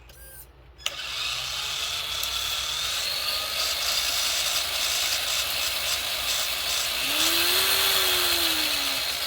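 Traxxas TRX-4 RC crawler's electric motor and geared drivetrain running under throttle with a steady gear whine. It starts suddenly about a second in, and its pitch rises and falls near the end. The pinion mesh has just been reset with shims in the motor plate to quiet a loud pinion noise.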